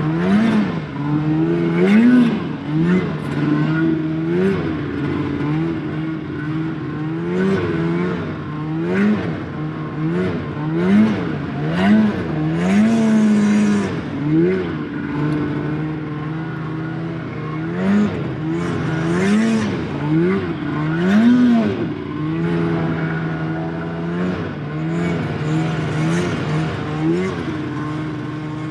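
Snowmobile engine under way, the throttle repeatedly opened and eased off so the engine note climbs and drops every second or two.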